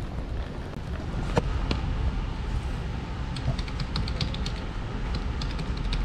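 Typing on a computer keyboard: quick, irregular key clicks from about halfway through, over a low steady rumble.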